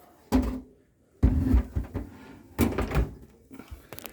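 Knocks and rattles of a detached dishwasher door being handled, in three short bursts about a second apart.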